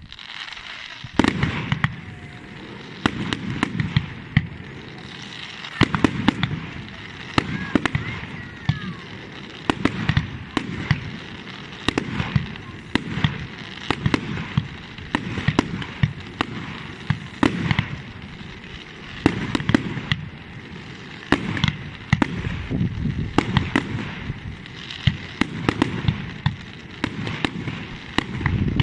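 Fireworks display: shells bursting in a steady run of bangs about every second, with crackling between them.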